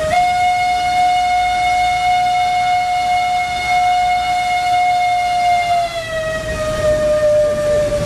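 Steam whistle of the cog railway locomotive Waumbek No. 9 blowing one long, steady blast. Its pitch sags a little about six seconds in.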